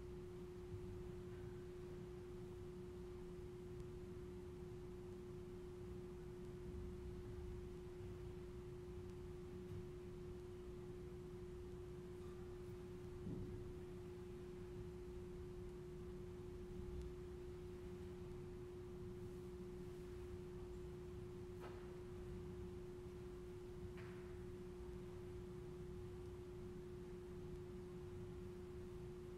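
A steady pure tone at one unchanging mid pitch over a low room rumble, with a few faint clicks and taps.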